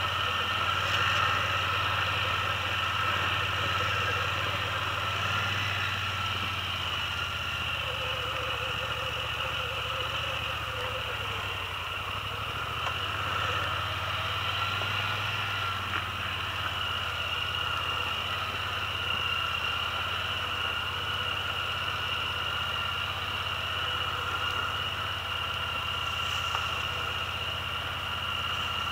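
ATV engine running steadily at low revs as the quad creeps along a rough, rocky trail, a low drone with a steady higher whine over it.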